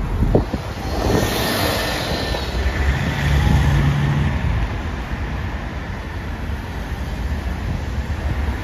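Road traffic with double-decker bus engines running as buses pull away. A rushing hiss swells and fades about a second in, and a steady engine hum sounds for about a second near the middle.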